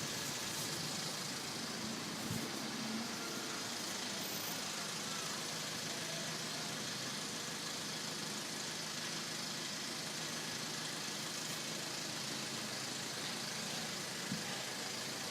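Steady traffic noise of a city street, an even hum with no engine revving, broken by a couple of small knocks.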